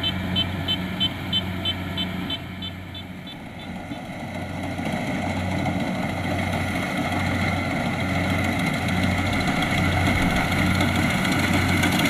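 Kubota DC-70 Plus rice combine harvester's diesel engine and threshing machinery running steadily while harvesting, getting louder as it comes closer. A rapid, high ticking, about three times a second, runs through the first three seconds.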